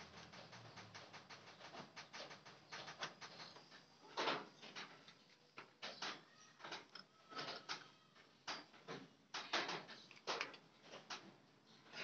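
Irregular metallic clicks and taps as an SR quill stem is handled and its clamp bolts are worked with a hex key, with a few louder knocks about four seconds in and again near the nine-to-ten-second mark.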